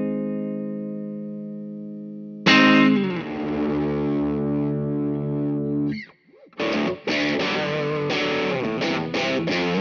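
Fender Telecaster on its neck pickup, pushed lightly by a Pettyjohn Edge boost/overdrive at low gain into a clean Dr. Z Carmen Ghia tube amp with spring reverb. A chord rings out and fades, a new chord is struck hard about two and a half seconds in and left to ring, then after a brief break near six seconds comes a run of rhythmically strummed chords.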